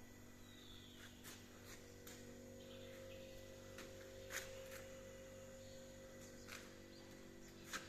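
Near silence: a faint steady hum with a few faint, short clicks scattered through it.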